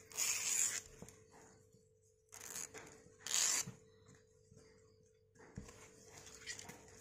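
Fresh coconut leaflet tearing as its midrib is stripped out by hand: three short tears, one at the start and two more about two and a half and three and a half seconds in, with lighter rustling of the leaf between them.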